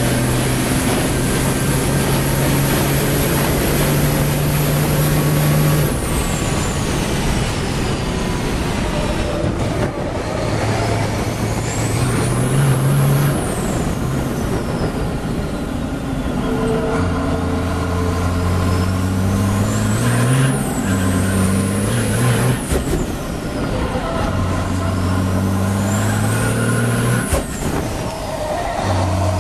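Iveco Stralis Formula Truck's turbodiesel racing engine heard from inside the cab at speed, its note stepping up and down with throttle and gear changes. Above it a high turbo whistle climbs and falls away about four times.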